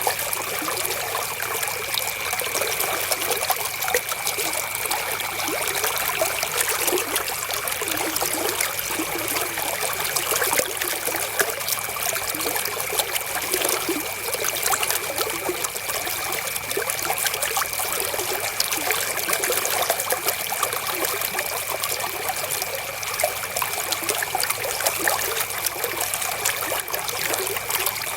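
River water flowing and trickling, a steady stream of small splashes and babbling with no pauses, with a thin steady high tone running underneath.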